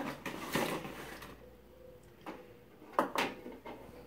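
Plastic packaging and small toy robots being handled and set down on a wooden table: a few scattered clicks and knocks, the loudest about three seconds in.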